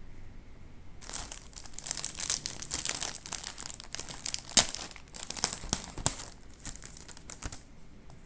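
Plastic wrapper of an Oreo cookie pack crinkling and tearing as gloved hands pull it open. It starts about a second in and stops shortly before the end, with one sharp crack midway as the loudest moment.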